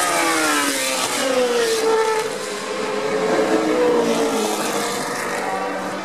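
1970s Formula 1 cars with Cosworth DFV V8 engines running at racing speed: the engine note falls steeply as one car passes and pulls away, then other engines rise and fall in pitch as more cars come through the corner and another approaches.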